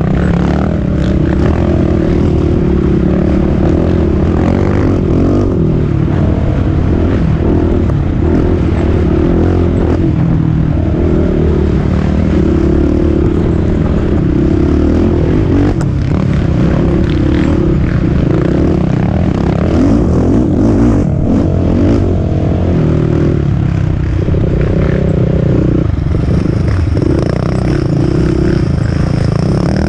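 Race quad (ATV) engine running hard, its pitch rising and falling as the throttle opens and closes.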